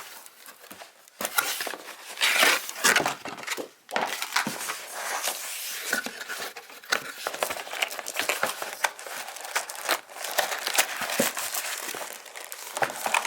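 Crinkling and rustling packaging as a keyboard box is opened and its wrapping handled. The sound comes in irregular bursts, starting about a second in.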